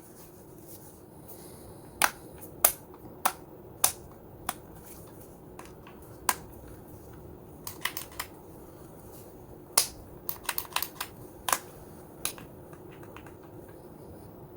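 Irregular sharp clicks and knocks from hard plastic as a cordless impact wrench is handled, some coming in quick clusters, over a faint steady hum.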